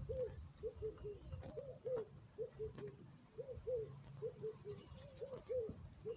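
A dove cooing, soft short rise-and-fall coos in twos and threes repeating throughout, with faint scuffling and a couple of light knocks underneath.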